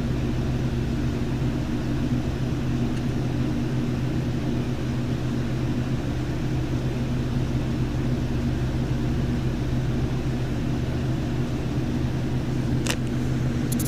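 A steady low hum with a bed of noise, unchanging throughout, and two or three sharp clicks near the end.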